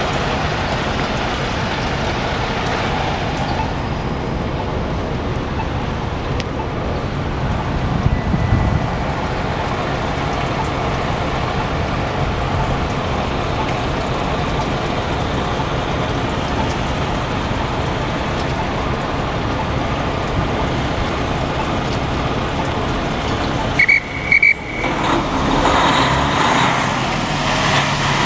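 Steady city street traffic: a continuous wash of passing cars and trucks. A heavier vehicle rumbles past about eight seconds in, two short high beeps sound a little before the end, and then an engine note rises as a vehicle pulls away.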